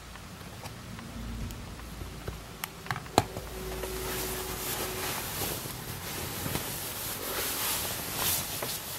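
A few sharp handling clicks, the loudest about three seconds in, then rustling of a blanket being grabbed and pulled about.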